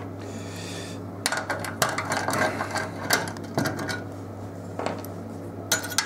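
Small metal parts clinking and rattling against a tumble dryer's sheet-steel panel as screws and a metal bracket are handled: a quick run of clicks for a couple of seconds, then a few more near the end.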